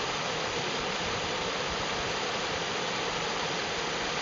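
Water rushing steadily over and through a beaver dam, an even hiss that holds level throughout.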